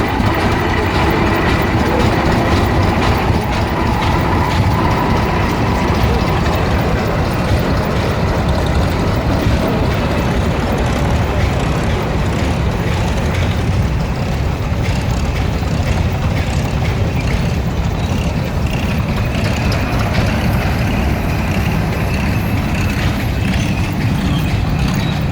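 Tractor engines running, a steady loud low rumble that goes on without a break.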